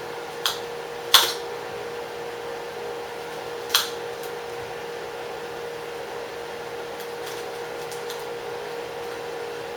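A knife tapping against a cutting board a few times while lemon rind is cut away, the loudest knock a little after a second in, over a steady hum.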